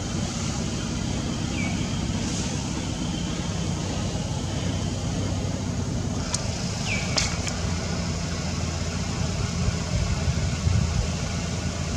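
Steady low rumble of outdoor background noise, with two short high chirps that fall in pitch, about a second and a half in and again about seven seconds in.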